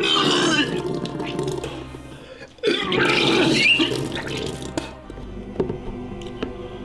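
Background music, with two louder stretches of sound over it: one in the first second or so, and another starting a little before the 3-second mark and lasting about a second.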